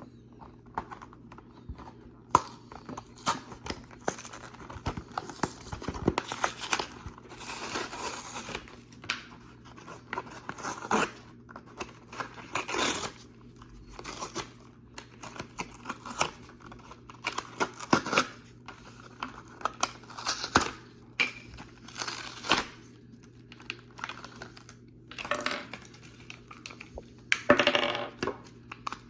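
Toy packaging being opened by hand: irregular bursts of tearing and crinkling with sharp clicks and taps, over a faint steady low hum.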